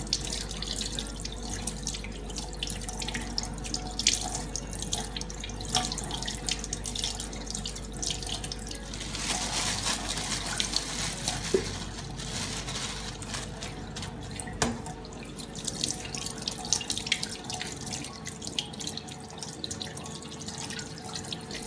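Kitchen tap running into a stainless steel sink while hands rub and rinse a piece of salted cod under the stream, water splashing and spattering on the steel as the salt is washed off.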